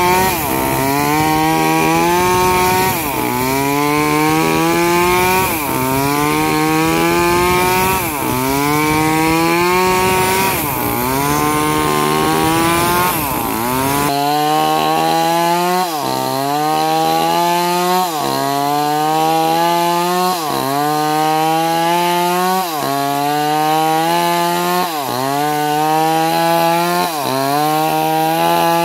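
Chainsaw engine running hard, its pitch sagging sharply and climbing back every two to two and a half seconds as the chain loads up in the wood. About halfway through, the sound changes abruptly and the dips come a little faster.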